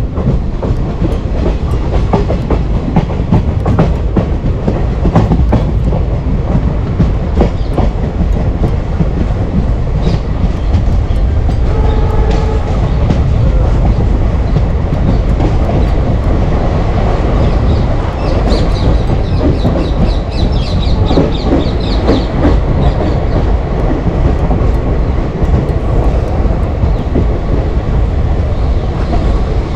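Passenger train of ICF coaches running along the track: a steady heavy rumble with the wheels clacking over rail joints.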